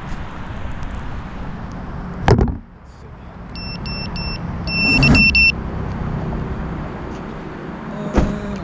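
A sharp thump as a QAV210 FPV quadcopter is set down on asphalt, followed a little later by a short run of high electronic beeps, over a steady low background rumble, heard through the quad's own camera microphone.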